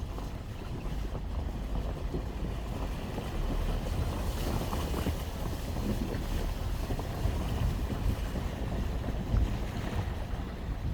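Wind buffeting the microphone over a steady rushing noise, with gusty low rumble that swells slightly midway.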